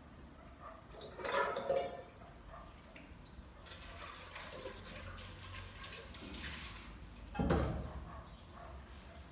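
Water running and splashing in a kitchen sink as dishes are washed by hand, with two louder noises, one about a second in and one about seven and a half seconds in.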